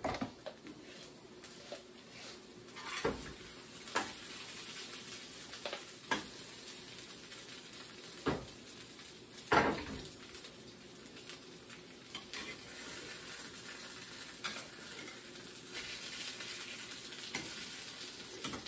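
Ham and potato patties sizzling in a frying pan, with a steady hiss. A metal spatula knocks and scrapes against the pan every second or two as they are worked.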